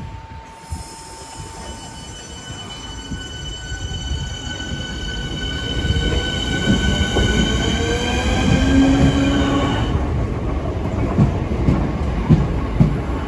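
Electric multiple unit pulling away from the platform. Its traction motors give a whine that rises steadily in pitch as the train speeds up, then stops about ten seconds in. Under it, the wheel rumble and clicking over the rail joints grow louder.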